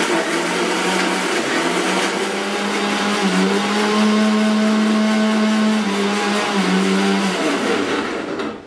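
Electric mixer grinder running with its small stainless-steel dry-grinding jar, grinding roasted dry red chillies, cumin seeds and turmeric into powder. The motor's pitch rises a little in the middle and drops back, and it switches off and winds down near the end.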